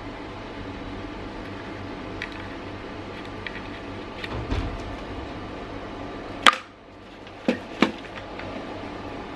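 Sharp clicks and light taps from handling a wireless mouse and its packaging, over a steady background hiss. One loud click comes about six and a half seconds in, then two more a third of a second apart about a second later.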